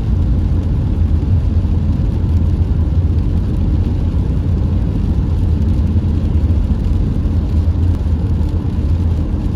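Steady low rumble of a car driving on a wet road, heard from inside the cabin: road and engine noise with no distinct strokes.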